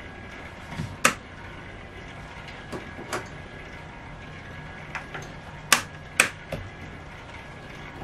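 Several sharp clicks and snaps over a low steady hum, the loudest two in quick succession a little before and after six seconds in. They come from switches and red test leads being worked at a bench power supply that has just stopped giving output.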